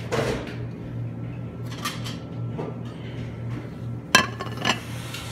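Kitchenware being handled: a short rustle at the start, then two sharp clinks with a brief ring about half a second apart near the end, over steady background music.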